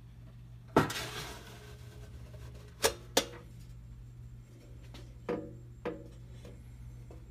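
Zinc-plated sheet-metal popcorn popper being handled: its hinged perforated lid and pan knock and clank together. There are about five sharp metallic clanks, the loudest about a second in with a short ring after it, then two quick ones, then two more.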